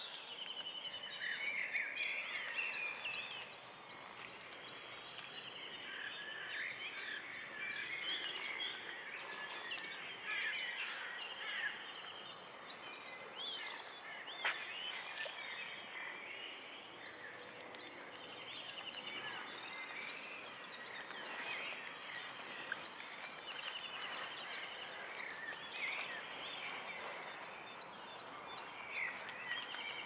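Dawn chorus of several songbirds: overlapping chirps and whistles with evenly repeated high trills, plus one sharp tick about halfway through.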